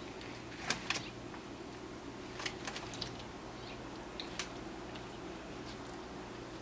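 Five-week-old puppies moving about, making a few faint, scattered clicks and ticks and a brief high squeak, over a steady low hum.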